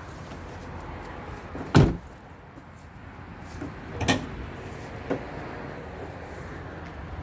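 Clunks of work on the car's engine bay: a loud knock, another about two seconds later, and a smaller one a second after that.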